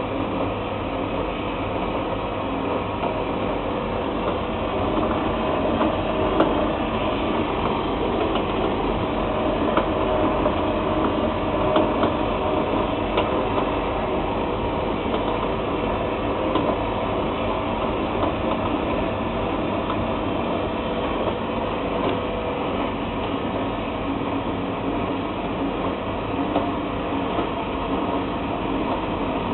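FRD1000 continuous band sealer running steadily, its conveyor motor and fan giving an even mechanical hum with a low drone and a few faint clicks.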